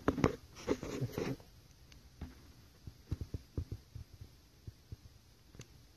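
Handling noise from a hand-held camera: a flurry of soft knocks and rubs in the first second and a half, then scattered light taps and ticks.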